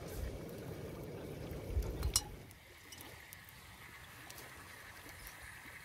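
Small gas camp burner running under a stainless pot, with a low rumble and a knock about two seconds in. After that it turns quieter, with a faint steady hiss: the raw pork slices in the pot are not yet sizzling.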